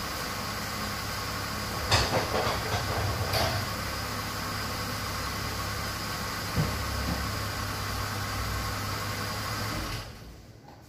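A steady machine running noise with a few light knocks, which stops about ten seconds in.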